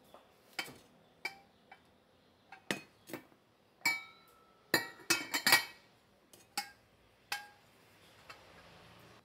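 Sharp clinks and knocks of a stovetop kettle being handled: its lid lifted off and set against the kettle, and the kettle moved on the cooktop. Some clinks ring briefly. A quick run of clinks about five seconds in is the loudest.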